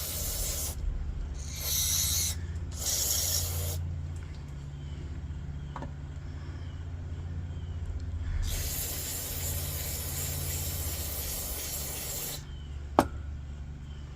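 Cleaning work on a Coleman 200A lantern's nickel-plated generator: three short hissing bursts, then one long hiss lasting about four seconds, over a steady low hum. A single sharp click comes near the end.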